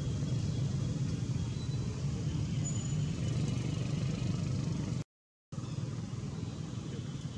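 A steady low motor-like rumble, with a few faint thin high chirps over it. The sound cuts out completely for about half a second about five seconds in.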